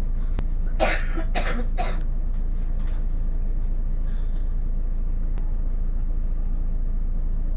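Bus engine idling with a steady low rumble while the bus waits at a red light. A person coughs about four times in quick succession about a second in.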